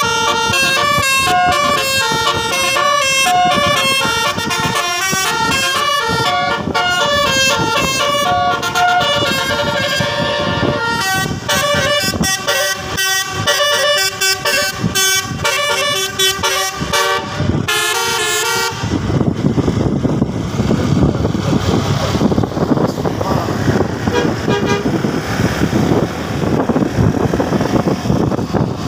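Basuri multi-tone 'telolet' bus horn playing quick melodies, changing note several times a second. About two-thirds of the way through it cuts off suddenly, leaving a loud, steady rushing noise.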